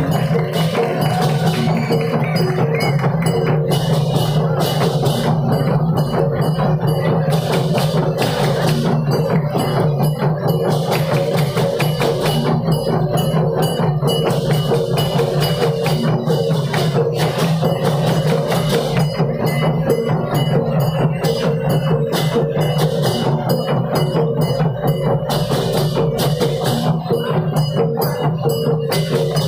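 Okokan, the large wooden bells of Kediri in Tabanan, Bali, played en masse by a big troupe: a dense, continuous clatter of hollow wooden knocks that rises and falls in waves.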